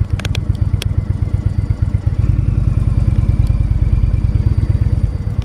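Indian motorcycle's V-twin engine running while riding, a low pulsing note that gets louder about two seconds in, with a few sharp clicks near the start.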